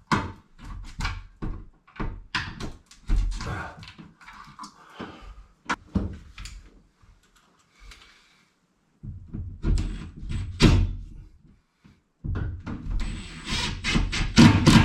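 Handling noise from fitting work: irregular knocks, clicks and scrapes. There is a short pause a little past the middle, and a busier run of quick clacks near the end.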